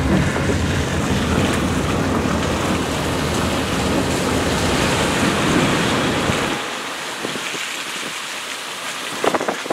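Wind rushing over the microphone from a moving car, with road rumble underneath. About two-thirds of the way in the low rumble drops away, leaving a lighter hiss with a few short clicks near the end.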